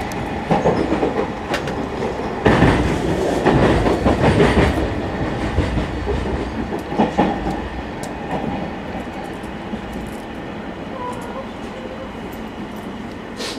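Electric train's wheels clattering over switch points as it runs into a station. The knocking is loud for the first several seconds, then the running noise grows quieter as the train slows.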